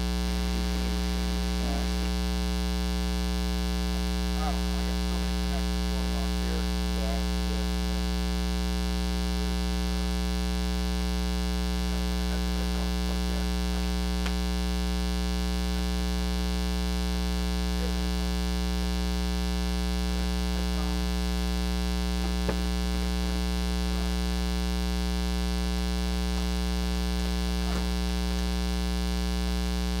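Steady 60 Hz mains hum and buzz on the recording, with a stack of overtones. It is ground-loop noise induced by powering the camera from its AC adapter while recording. A single faint click a little past two-thirds through.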